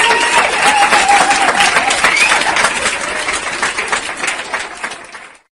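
Applause and clapping with voices over it, fading out and cutting off about five seconds in.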